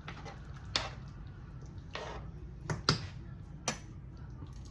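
Cookware clinking and knocking in the kitchen: about five sharp, irregular taps, as when a utensil or lid meets a pot, over a steady low hum.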